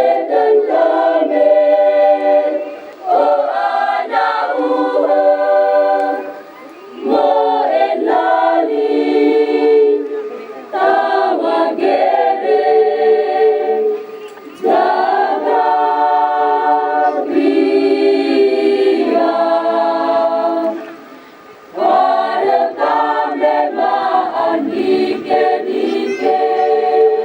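A choir singing a cappella in several-part harmony, in phrases a few seconds long with short breaths between them.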